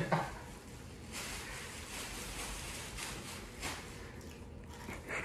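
Faint wet chewing and mouth noises of people eating burgers, with a single soft click past the middle.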